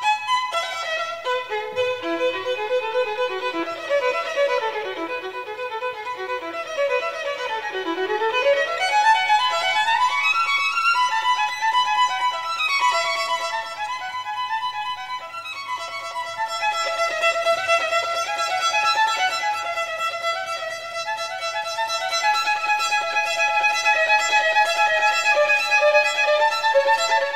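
Violin music playing a quick, running melody, with a long upward run about eight seconds in and longer held notes later on. It stops abruptly at the end.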